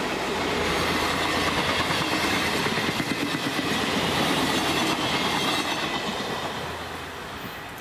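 Passenger coaches of a train hauled by a D445 diesel locomotive rolling past at speed: steady wheel-and-rail noise that swells to its loudest about four to five seconds in, then fades as the train goes away.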